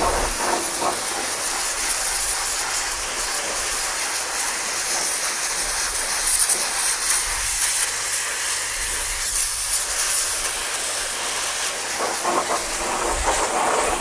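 High-pressure car washer (HTP pump) jet spraying water onto a steel wheel rim and hub, blasting off grease and mud, with a steady loud hiss that cuts off abruptly at the end.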